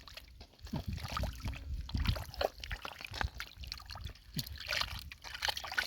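Hands working through wet mud and shallow water, with irregular splashing, dripping and squelching.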